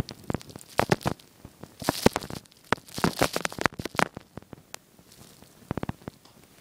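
Packed snow crunching in irregular clusters of short, crackly strokes, the loudest groups about a second apart.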